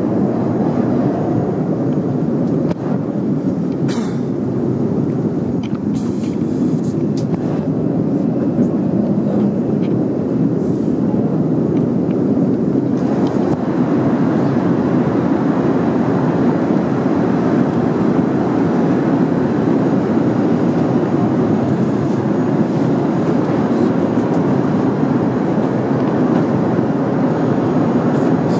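Steady airliner cabin noise inside an Airbus A380 in flight: the even rush of engines and airflow, a little brighter from about halfway, with a few faint clicks.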